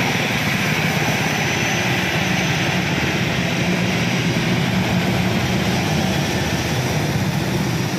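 Steady sound of an AirAsia Airbus A320's jet engines at taxi power, mixed with the hiss of steady rain and tyres of road traffic passing on the wet road.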